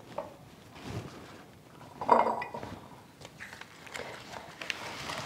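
Scattered clinks and light clatter of kitchenware being handled, the loudest about two seconds in: a plastic funnel set onto a large glass jar and a scoop working through a metal tray of dry, freeze-dried ham cubes.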